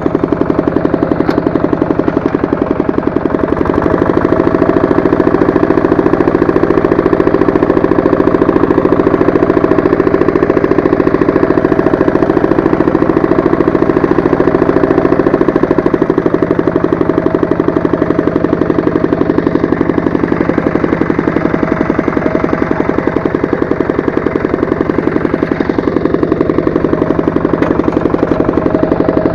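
Walk-behind tractor engine running steadily with a rapid, even exhaust beat while driving a rotary tiller. Its pitch rises a few seconds in and drops back about sixteen seconds in.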